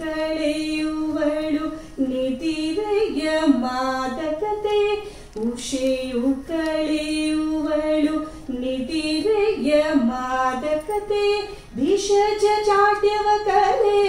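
A woman singing a Kannada mukthaka verse solo and unaccompanied, in long held and ornamented notes, phrase by phrase with short breaks between.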